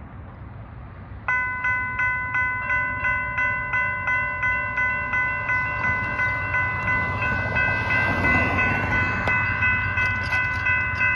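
Railroad grade-crossing warning bell starting up about a second in and then dinging steadily about three times a second as the crossing activates for an approaching train. A rushing noise swells under it around the eighth second.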